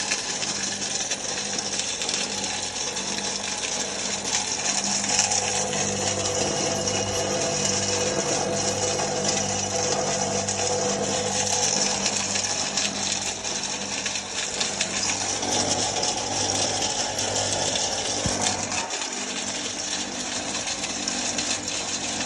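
Heavy-duty 2 HP mixer grinder running steadily: a low motor hum under a loud, dense whirring hiss.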